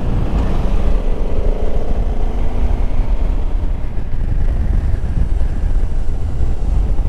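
KTM 990 SMT's V-twin engine running steadily under way, heard from on the bike, with heavy wind rumble on the microphone.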